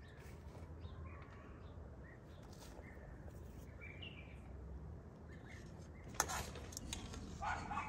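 Birds chirping, with short scattered calls over a low steady outdoor background. A sharp clink of cookware sounds about six seconds in, and a brief louder rustle or clatter near the end.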